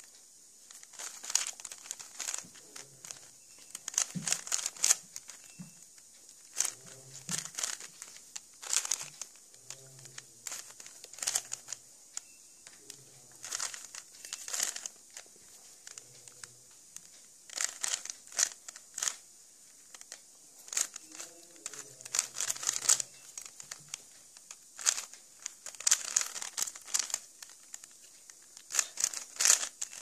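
Plastic clicking and clacking of a stickerless 3x3 Rubik's cube as its layers are turned by hand, in irregular flurries of quick turns with short pauses between them.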